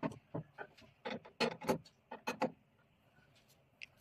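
A hand screwdriver and a metal wire cup holder clicking and knocking against a machine's plastic housing as the holder is screwed on: a quick run of sharp taps that stops about two and a half seconds in.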